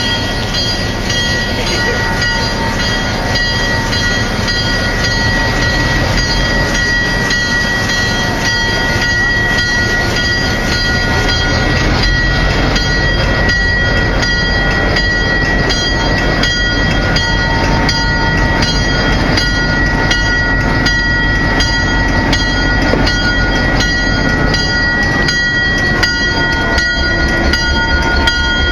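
Diesel-electric locomotive running close by: a steady low engine rumble with a constant high-pitched whine over it. Faint regular clicks come through more often in the second half.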